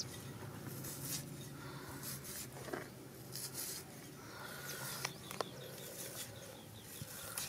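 Small red onion being sliced against a fixed floor blade, giving a few sharp clicks, over a quiet outdoor background with a short run of faint high bird chirps.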